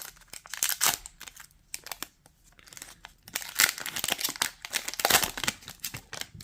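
Wrapper of an Upper Deck Artifacts hockey card pack being torn open and crinkled, in irregular crackling bursts.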